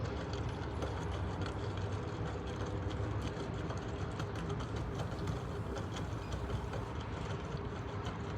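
Portable front-loading washing machine running a boil wash: a steady motor hum with a held tone above it and light scattered ticking.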